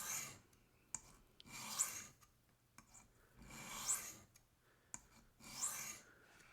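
Knife blade of D2 steel drawn across a sharpening stone in four even passes about two seconds apart, each a short gritty swish, with small clicks between strokes as the blade is reset on the angle guide.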